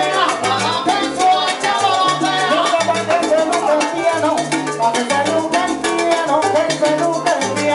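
Live salsa band playing: a lead singer over a bass line and dense, steady percussion.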